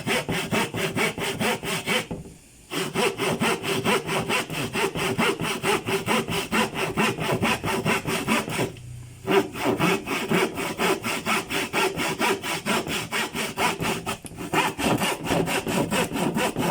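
Handsaw cutting with quick, evenly repeated back-and-forth strokes. Sawing stops briefly twice, about 2 seconds in and again about 9 seconds in, then resumes at the same pace.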